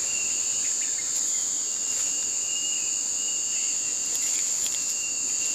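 Insects singing in a steady, continuous high-pitched drone, with a fainter, thinner tone coming and going beneath it.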